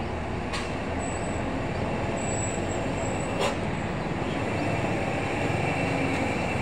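Steady road traffic: cars and trucks passing slowly through a hairpin bend, engines running. Two short clicks come through, about half a second in and at about three and a half seconds.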